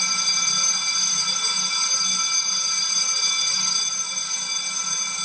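Recorded electric school bell ringing continuously, played by the WB-06 bell timer through an amplifier and loudspeakers as the scheduled morning assembly bell.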